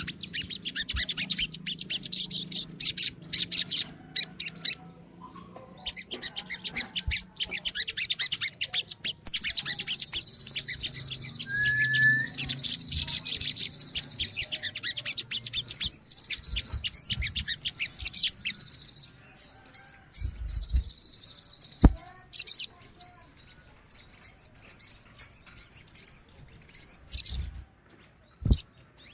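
Several crimson sunbirds (sogon) calling together in rapid high chattering chips, with a long unbroken high trill from about a third of the way in to about two thirds of the way through. A faint low hum sits under the first half.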